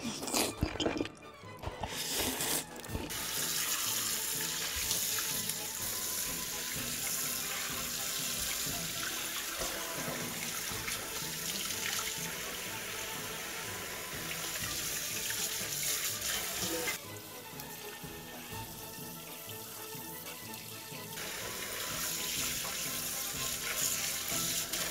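Kitchen tap running steadily into a sink, as in washing food, easing off for a few seconds past the middle and then running full again. A few knocks come just before the water starts.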